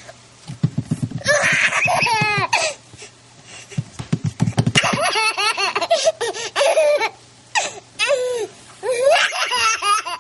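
Baby laughing hard in several bursts, with short pauses between them.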